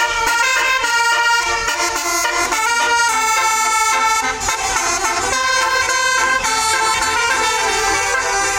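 Tour bus basuri telolet horn, a set of musical air horns, playing a melody: a run of held horn notes stepping from pitch to pitch without a break.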